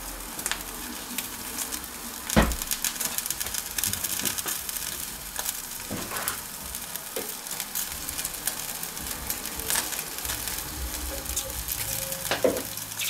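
Veal chop sizzling on the wire grate of a Severin Steakboard electric grill, with fat dripping onto the red-hot heating coils and spitting, crackling and popping, a few pops louder than the rest.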